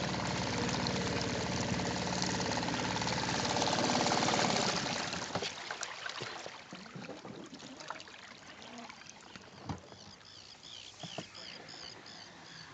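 Suzuki 2.5 four-stroke outboard motor running steadily, picking up a little, then stopping about five seconds in. After it stops there is water trickling and lapping with a few light knocks, and a run of high chirps near the end.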